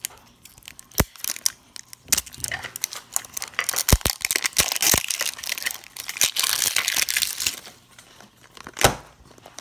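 Thin plastic shrink-wrap crinkling and tearing as it is peeled off a Mini Brands capsule ball, with a few sharp clicks of fingers on the hard plastic shell.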